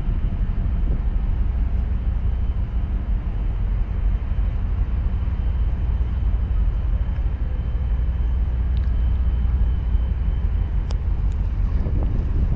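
Steady low rumble of the container ship CMA CGM Thames under way, passing close by as it leaves port.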